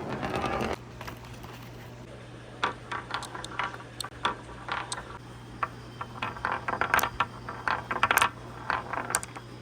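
Marbles clicking and rattling irregularly against a wooden marble run track, in scattered knocks and short clusters, over a steady low hum.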